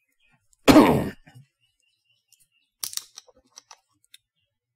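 A man clears his throat once, about a second in. Then the plastic screw cap of a Calpis White Peach drink bottle is twisted open, giving a short run of small crackling clicks near the end as the seal breaks.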